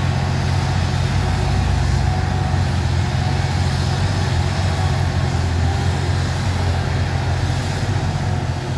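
Liebherr R 964 crawler excavator's diesel engine running steadily under load as the bucket digs into soil and lifts a full load, a deep, even drone.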